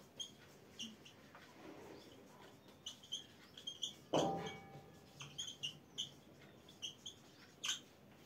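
A marker squeaking in short, high chirps as it writes on a whiteboard, the squeaks coming irregularly with the strokes. About four seconds in there is a single louder knock with a brief ringing after it.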